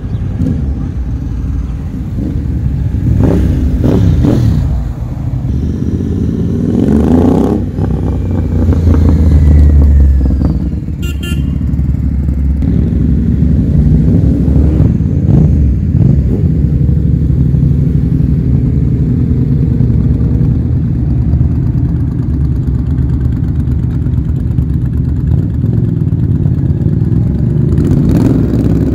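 A stream of motorcycles riding past one after another, engines running continuously with several loud pass-bys, the loudest about ten seconds in. Engine notes rise and fall as riders open the throttle and pull away.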